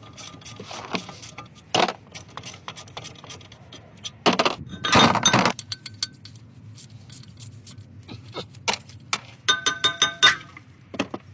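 Metal clinks, knocks and scrapes of parts and tools being handled during car repair work, with a louder scraping burst about four seconds in and a short squeak near the end.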